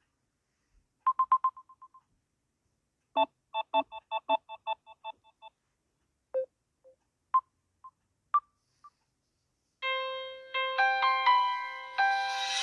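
Samsung Galaxy A30 phone tones played one after another with silent gaps: a quick fading run of beeps about a second in, a falling-away series of chime notes around three to five seconds, a few single pings, then a fuller melodic ringtone starting near ten seconds.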